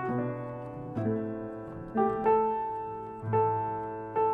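Slow piano music: chords struck about once a second, each left to ring and fade.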